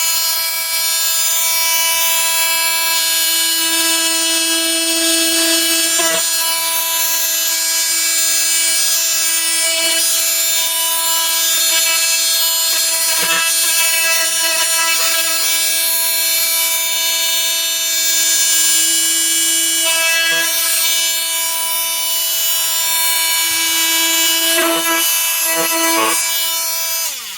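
Flex FX4111 cordless oscillating multi-tool running steadily with a high, even whine as its blade cuts through meat, with brief changes in the sound here and there as the blade bites. It stops near the end.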